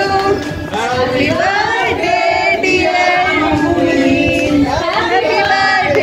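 Several voices, women's and a child's, singing a birthday song together, with hands clapping along.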